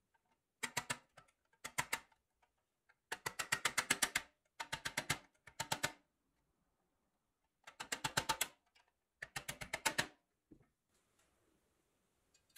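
Rapid, evenly spaced clicking in seven short bursts, about ten clicks a second, with brief pauses between them.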